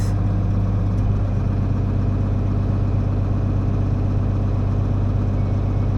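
Farm tractor's diesel engine running steadily at idle, a deep even hum, while the planter's hydraulics are worked.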